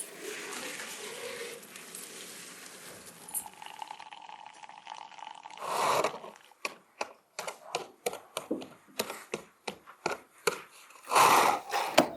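Wet mud paste being stirred and worked, then about halfway a quick run of sharp wooden knocks, roughly two or three a second, from printing blocks struck onto cloth, with a louder rushing burst near the end.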